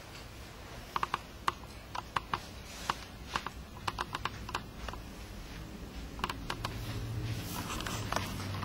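A run of irregular light clicks, well over a dozen in about five seconds, then a faint low hum that builds near the end.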